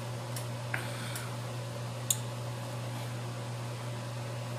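A steady low hum under a few light rustles and clicks of plastic packaging being handled; the sharpest click comes about two seconds in.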